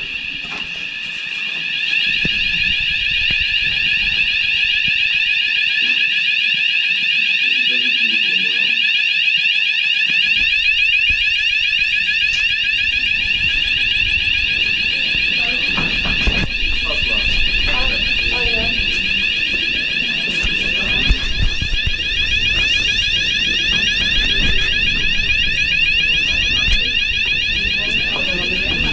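Hotel fire alarm sounding: a continuous high-pitched electronic tone with a fast warble. It is a false alarm.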